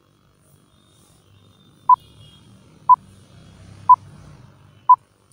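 Film countdown leader timer beeps: four short, identical electronic beeps one second apart, starting about two seconds in, over a faint low rumble.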